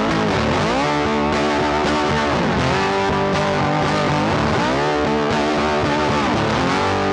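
Background music led by a distorted electric guitar playing a melody with pitch bends, over a steady backing.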